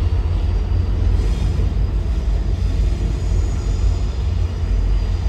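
Metra MP36PH-3S diesel-electric locomotive running as it rolls past at low speed, a steady low engine rumble.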